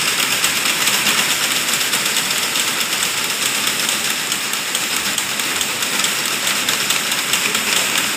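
Automatic glove knitting machines running, with the needles and carriage giving a steady, hissy mechanical clatter.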